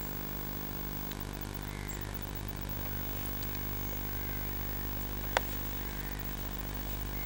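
A steady low hum made of several evenly spaced tones, with one sharp click about five seconds in.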